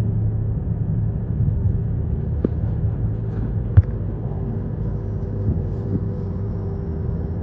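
Steady low rumble of a car's road and engine noise heard inside the cabin while cruising on a highway. A sharp tap about four seconds in, with a smaller one a little before it.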